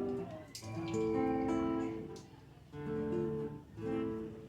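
Acoustic guitar strummed in chords, each chord ringing on and fading before the next stroke, four strokes in all.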